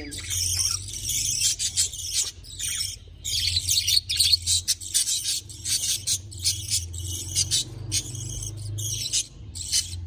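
Budgerigars chattering and chirping in quick, near-continuous high-pitched bursts, with a steady low hum underneath.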